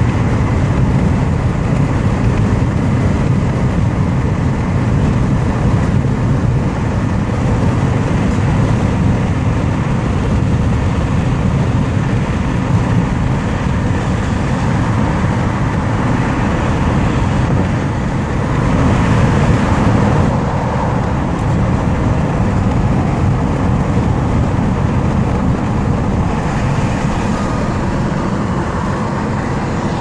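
Road noise inside a car moving at highway speed: a steady low rumble of tyres, wind and engine, swelling briefly twice.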